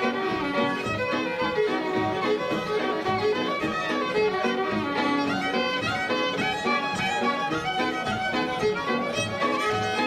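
Irish traditional fiddle music: fiddles playing a reel in quick running notes at a steady pace.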